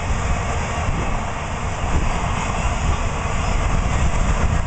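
Freight cars of a passing work train rolling by on the rails: a steady rumble and rush of wheels on track, without distinct clicks or breaks.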